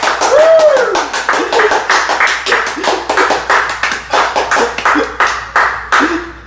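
Audience applause, a dense steady clapping, with a whoop that rises and falls about half a second in and a few short cheering voices later.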